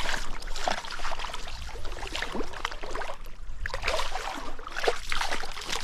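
Water splashing and sloshing in irregular bursts as a hooked brown trout is fought and brought in.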